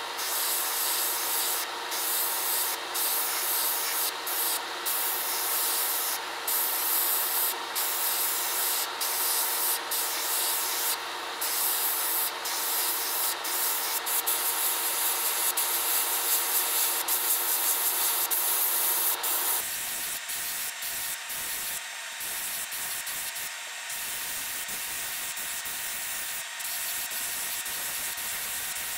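Airbrush spraying paint in short bursts: a steady hiss cut by brief gaps each time the trigger is let off, over a faint steady hum.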